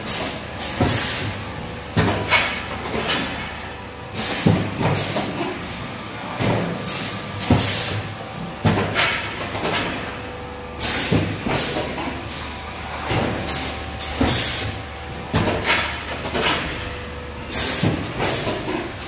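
Automatic cup filling and sealing machine running through its cycle: repeated knocks and clanks of moving parts, with a sharp burst of air hiss every few seconds over a faint steady hum.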